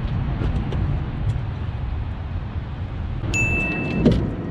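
A steady low rumble, with a short electronic beep sounding for under a second about three seconds in. A brief knock follows as the carp comes into the landing net.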